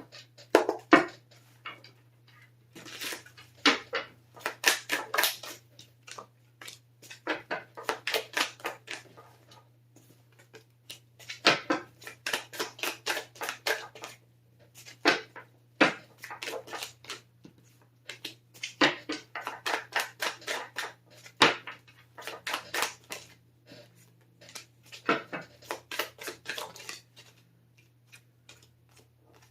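Tarot cards being shuffled and handled: repeated bursts of rapid papery clicks, each lasting a second or two with short pauses between, over a faint steady low hum.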